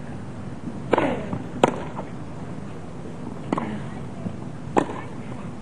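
Tennis ball struck by rackets in a rally: four sharp pops, the first two close together, the next two about a second and more apart, over a steady low background noise.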